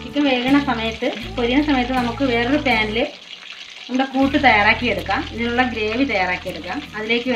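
Background music: a melody of gliding pitched notes over a steady bass line, which drops out for about a second around three seconds in.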